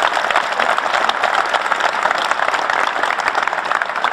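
A group of karate trainees applauding, many hands clapping at once in a steady round of applause.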